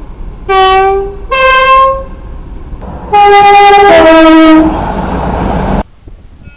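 British train's two-tone horn sounded twice: a short low note then a higher one, then about three seconds in a longer pair, high then low. The sound cuts off abruptly near the end.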